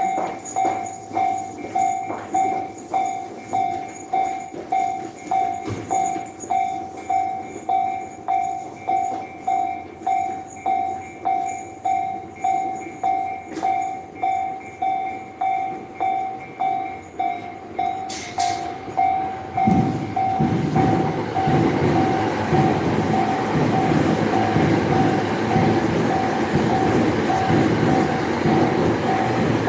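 Japanese railway level-crossing alarm ringing steadily, about three rings every two seconds. About 20 seconds in, a train starts passing the crossing, louder than the alarm, its wheels clattering rhythmically over the rail joints while the alarm keeps ringing.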